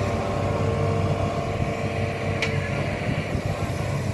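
Hitachi ZX210F excavator's diesel engine working under load as it drags an amphibious excavator's pontoon, with a steady hydraulic whine that fades about three seconds in. There is one sharp click about two and a half seconds in.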